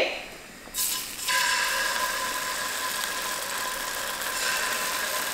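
Black bean paste (jjajang sauce) dropped into hot oil in a stainless steel frying pan, sizzling steadily from about a second in as the paste starts to fry.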